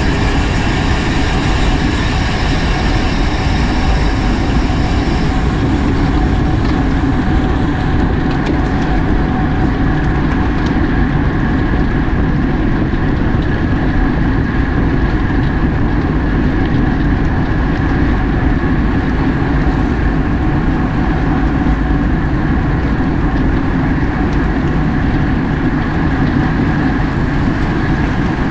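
Steady, loud wind rush and road noise from a road bike ridden at race speed, its tyres humming on the pavement, picked up by a camera riding along with the bike.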